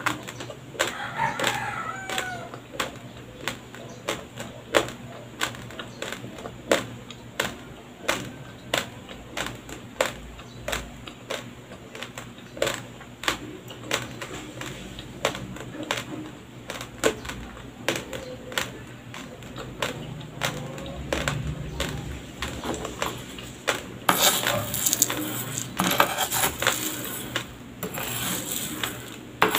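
Dry raw white rice crunching between the teeth, close to the microphone, with sharp cracks about two a second. About 24 seconds in, a metal spoon scrapes and scoops through a pile of dry rice grains.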